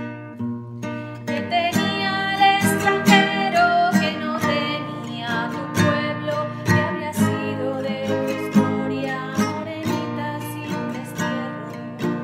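Acoustic guitar being strummed and picked through a song's chords, lightly at first and fuller from about a second and a half in.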